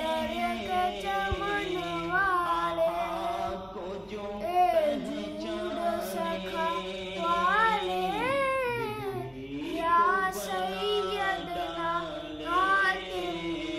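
A boy singing a manqabat, an Urdu devotional song in praise of a saint, solo, drawing out long melodic phrases with notes that rise and fall.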